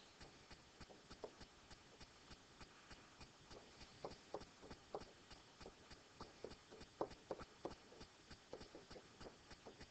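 Faint, quick taps and clicks of a pen stylus on a tablet as letters are hand-written, several a second and a little louder about halfway through.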